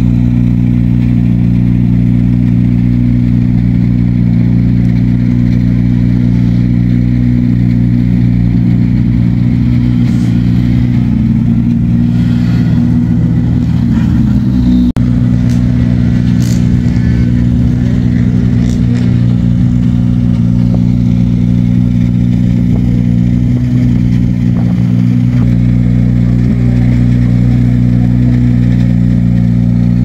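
An engine idling steadily close by, a loud, even low hum that barely changes in pitch.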